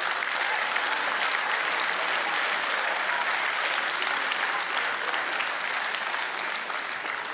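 Studio audience clapping, thinning out and dying down near the end.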